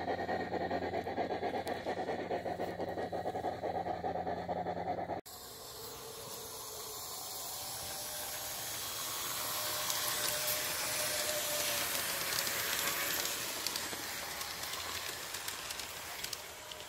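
G-scale garden model trains running on outdoor track. First comes a close, fast rattling over a steady motor hum. After a sudden cut, a rushing noise swells and then fades as a train rolls past.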